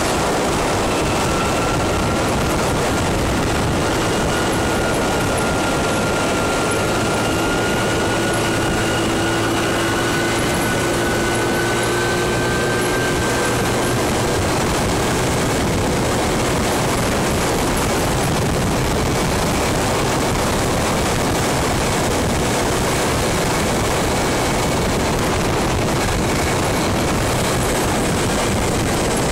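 Motor scooter ride: a steady rush of wind and road noise, with the scooter's engine droning underneath, its pitch creeping slowly up over the first half.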